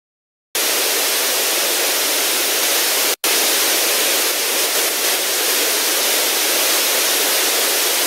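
Loud, steady hiss of static-like white noise that cuts in suddenly out of dead silence about half a second in. It drops out for an instant a little past three seconds, then carries on unchanged.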